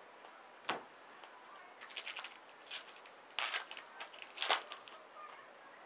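Trading cards being flicked and slid through by hand, a series of short papery swishes and snaps, the loudest about three and a half and four and a half seconds in.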